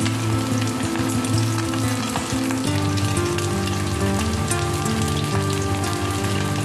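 Flour-coated chicken wings deep-frying in hot oil: a steady sizzle with fine crackling, under background music of slow held notes.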